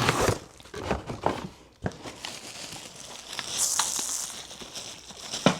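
Packaging crinkling and rustling with scattered light knocks as a newly bought kettle is handled out of its wrapping, with a louder rustle about midway.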